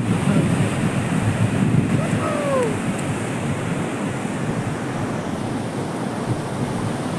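Steady rush of a flooded river, with wind buffeting the microphone. A short falling cry sounds once about two seconds in.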